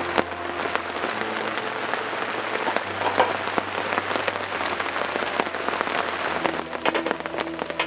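Steady rain falling, with many separate drops striking close by, over soft background music with slow chord changes.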